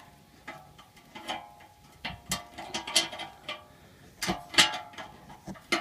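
Metal clinks and knocks with short metallic ringing, several in a row, the loudest about four and a half seconds in: a bolted-in exhaust whistle being worked loose from a car's exhaust tailpipe.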